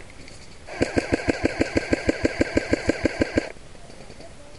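Airsoft electric gun firing a full-auto burst: a steady string of about seventeen shots over nearly three seconds, the gearbox motor whining under the clatter, then cutting off sharply.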